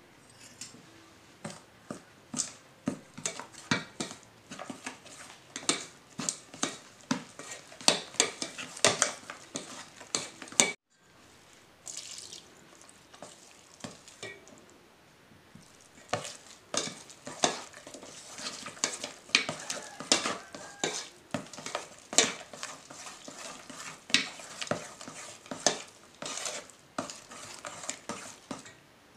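Wheat-flour and egg cake batter being beaten with a metal utensil in a stainless steel bowl: quick, irregular clinks and scrapes against the bowl, a few each second. The strokes stop for about a second just under halfway through, then carry on.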